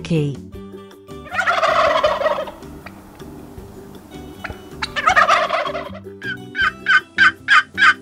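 Turkey gobbling twice, each a rattling call about a second long, then a quick run of short calls, about three a second, near the end.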